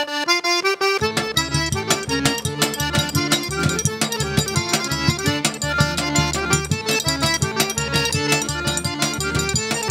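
Live forró arrasta-pé instrumental intro: the accordion plays alone for about a second, then the zabumba drum comes in with a fast, steady beat under the accordion melody.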